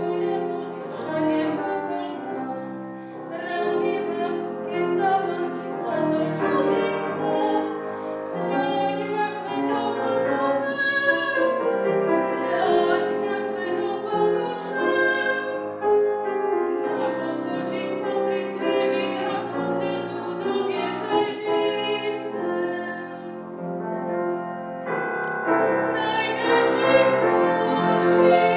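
A woman singing in a classical, operatic style, accompanied on a grand piano; the music swells louder near the end.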